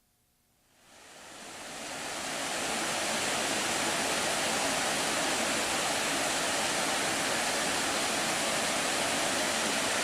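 Steady rush of river water pouring over a waterfall, fading in over the first couple of seconds after a brief near silence.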